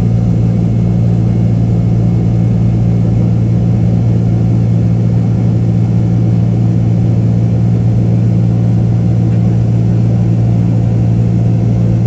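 Boeing 767-300ER turbofan engines at climb power, heard from inside the cabin over the wing: a loud, steady drone with a strong low hum that does not change.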